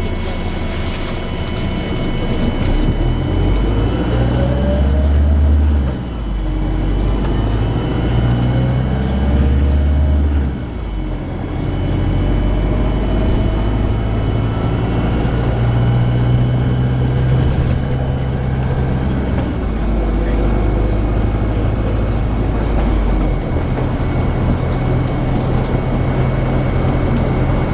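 Volvo B5LH hybrid bus running, its diesel engine droning low and changing pitch in steps while rising whines from the hybrid electric drive come in as it pulls away. A few knocks sound in the first couple of seconds.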